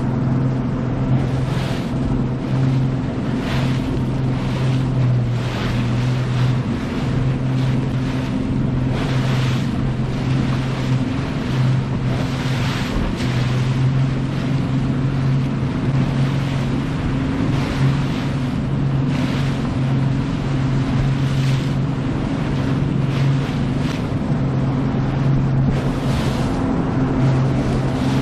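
A 2018 Nitro Z20 bass boat's outboard motor runs at a steady drone while the hull pushes through choppy waves, with water rushing and splashing against the boat in irregular surges every second or two. Wind buffets the microphone.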